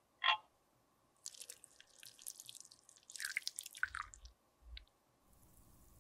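Clear melted liquid poured from a small glass beaker into metal-topped lipstick molds, trickling and dripping unevenly for about three seconds, after a brief tap near the start. A few soft low thumps come near the end of the pour, and a faint steady hum follows.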